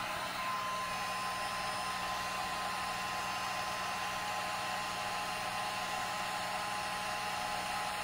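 1800-watt heat gun running steadily, its fan blowing hot air: an even rush of air with a low hum and a thin high tone under it.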